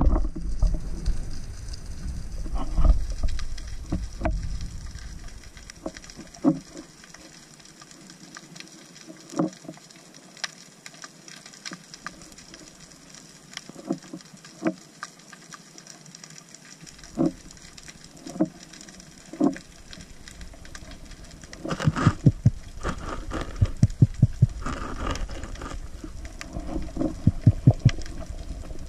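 Underwater sound through a camera housing on a speargun: a low rush of water for the first few seconds, then scattered sharp clicks and taps, turning into quick runs of clicks in the last several seconds.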